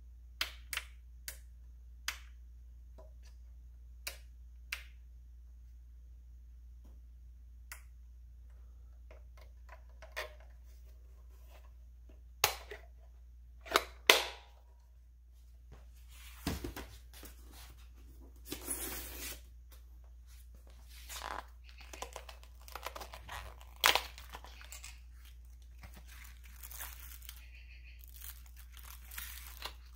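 Scattered sharp clicks and knocks of a plastic RC transmitter being handled, then rustling, crinkling and tearing of cardboard and plastic packaging as a small box is opened.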